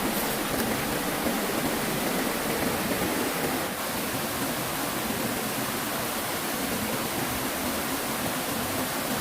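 Steady rush of flowing river water, even and unbroken, with a slight dip in level about three and a half seconds in.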